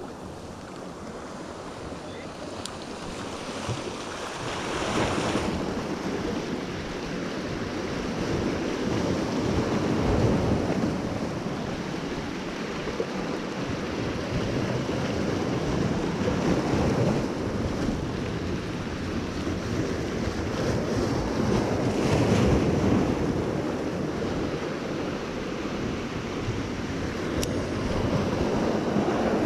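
Ocean surf breaking and washing over jetty rocks, swelling in surges every five or six seconds, with wind buffeting the microphone.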